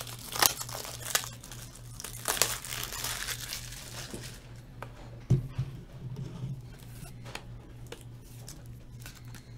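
Plastic packaging crinkling and crackling as it is handled and torn, busiest in the first four seconds, with a single thump about five seconds in, then lighter handling noise.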